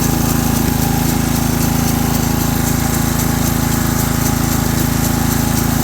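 Engine of a Ryan Greensaire core aerator running steadily at a constant speed.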